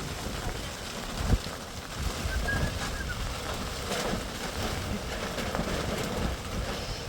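Storm wind gusting and buffeting the microphone with rain. There is a thump about a second in and a brief high-pitched chirp a little later.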